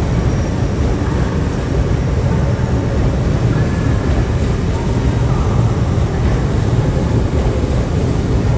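Hitachi Class 800 Azuma bi-mode multiple unit moving past along the platform road, a steady low rumble.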